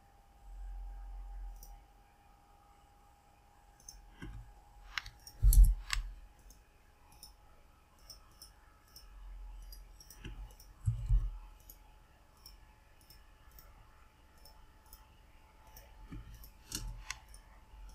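Computer mouse clicking now and then while a CAD sketch is drawn, with a few louder clicks carrying a low thud, about a third of the way in and again past the middle. A faint steady hum sits underneath.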